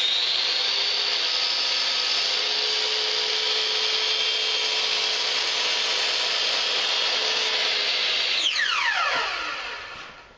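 Electric miter saw running steadily, its blade lowered through a strip of tape on the saw table to cut a zero-clearance slot. The motor has just spun up as it starts, then winds down with a falling whine about eight seconds in.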